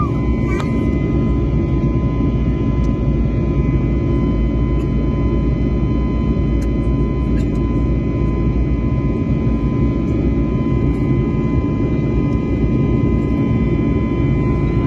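Steady roar of an airliner in flight heard from inside the cabin: jet engine and airflow noise, with a constant high whine over it.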